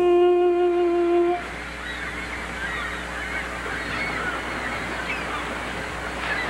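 A held note of bowed-string music ends about a second and a half in. It gives way to a steady rushing noise with many birds calling over it, like a flock.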